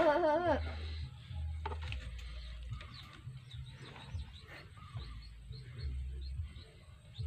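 A goat bleats, one wavering 'maa' that breaks off about half a second in. Faint short bird chirps follow over a low rumble.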